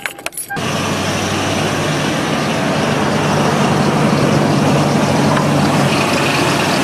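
Toyota 4Runner's 4.7-litre V8 cranking and catching about half a second in, then idling steadily. A thin high whine comes in near the end: the unexplained whining noise the owner is trying to trace, which he thinks may come from the transmission.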